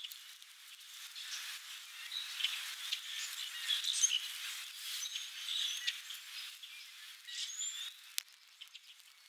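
Small birds chirping in the background: many short high chirps and brief whistled glides, busiest in the middle and thinning toward the end, with scattered faint clicks and one sharp click near the end.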